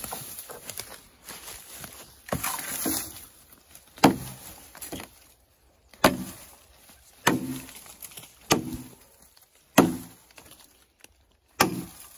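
A 2.5-pound axe chopping into a downed birch log: six sharp blows about 1.2 to 2 seconds apart starting about four seconds in, each with a short hollow ring from the wood. Before the blows, footsteps rustle through dry brush.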